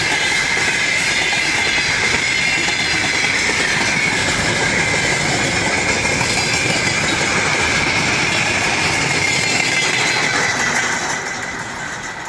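A train hauled by a 2TE116 diesel locomotive rolling past, with the clickety-clack of wheels and a steady, wavering high squeal. The sound drops off about eleven seconds in as the train passes.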